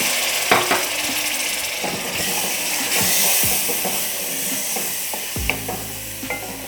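Spiced onion-tomato masala sizzling in a cooking pot while a spoon stirs it, knocking against the pot several times.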